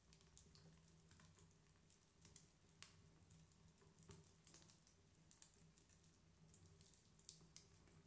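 Near silence: room tone with a faint steady low hum and scattered faint clicks.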